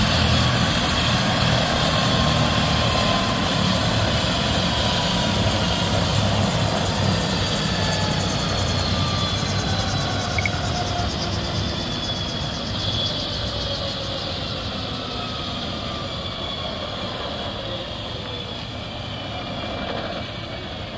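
Turbine helicopter on the ground with its engine and main rotor running down: a steady turbine whine and rotor noise that slowly falls in pitch and grows gradually quieter.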